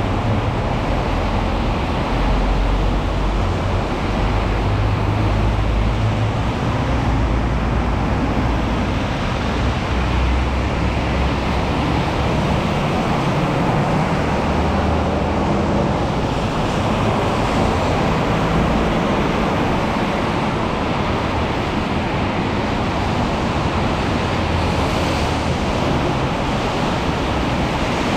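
Steady hiss of falling rain, with a low rumble underneath that swells and fades several times.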